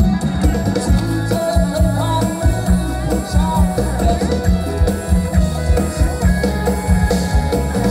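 Live band music played loud through a PA: a drum kit and bass keep a heavy, steady beat under guitar, keyboard and a singing voice.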